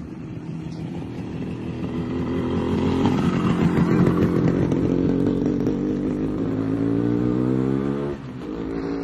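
Motorcycle engine running under way: its pitch climbs steadily for several seconds, then drops suddenly near the end and picks up again at a lower pitch.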